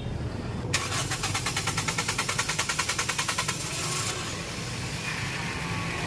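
Toyota Vios four-cylinder engine being started: the starter cranks it in quick, even pulses for about three seconds before it catches and settles into a steady idle. The long crank is the hard starting that new spark plugs have not cured, while the engine now runs without the earlier misfire.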